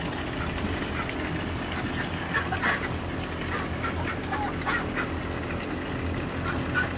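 Muscovy duck giving short calls: a few in a row about two to three seconds in, more around four to five seconds, and again near the end, over a steady low hum.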